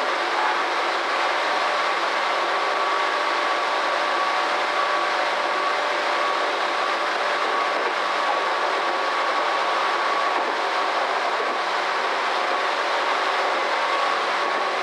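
Tobu Railway electric train running at speed, heard from inside the train: a steady rolling noise of wheels on track, with a faint steady tone over it.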